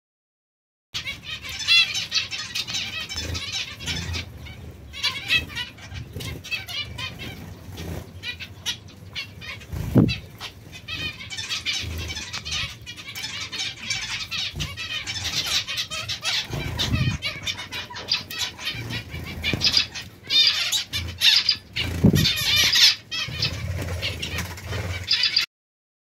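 A flock of small caged finches, zebra finches among them, chirping and calling without pause in a dense chatter, with a few low thumps scattered through it.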